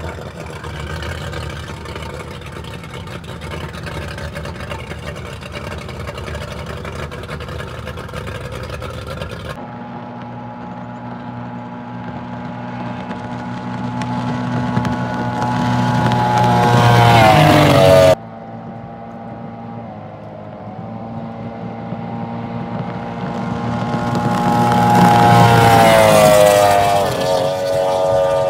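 Mercury outboard on a Hydrostream speedboat: running steadily for about the first ten seconds, then two high-speed passes. In each pass the engine grows louder as the boat approaches, and its pitch drops sharply as it goes by before the sound cuts off abruptly.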